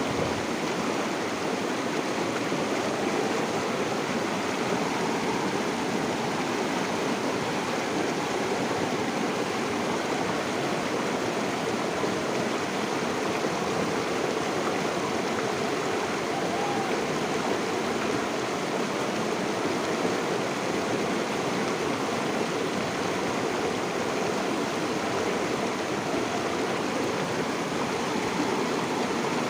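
River water flowing steadily over rocks, an even rushing and babbling that holds at the same level throughout.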